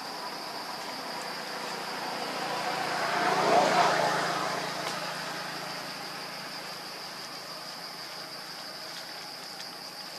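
A vehicle passing by: a broad rumble and hiss that swells to a peak about three and a half seconds in, then slowly fades. Behind it runs a steady high-pitched insect drone.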